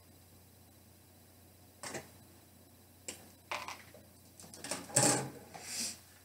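Handling noises from a plastic model kit: a few light clicks and clatters of the plastic parts runner, then a louder cluster of rustling and clatter about five seconds in as the instruction sheet and parts are moved on the table.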